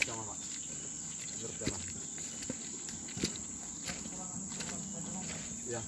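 A steady, high-pitched drone of insects, with scattered soft ticks and rustles of footsteps through grass.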